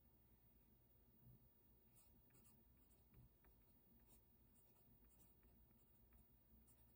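Faint scratching of a pen writing on paper in short strokes, starting about two seconds in, with a soft low bump about a second in and another about three seconds in.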